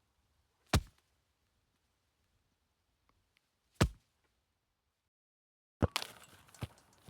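Two single heavy knocks about three seconds apart. Then a sudden hit starts a crackling, clattering burst with a second knock inside it, like something breaking.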